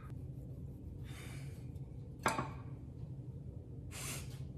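Faint dough-handling sounds over a steady low hum: a wooden rolling pin pressed and rolled over crumbly dough on a plastic cutting board, a single sharp knock a little past two seconds in as the pin is set down on the stone countertop, and a short soft rustle near the end as a plastic cookie cutter is pushed into the dough.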